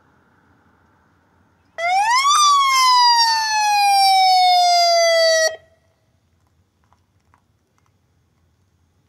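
Police SUV siren sounding a single wail. The pitch rises quickly for about half a second, falls slowly over about three seconds, then cuts off suddenly.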